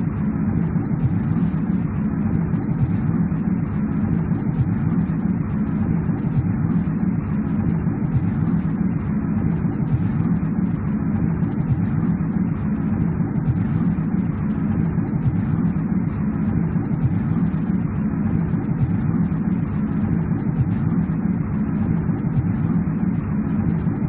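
Steady low rumbling noise of a snowy-forest ambience track, even throughout with no separate events.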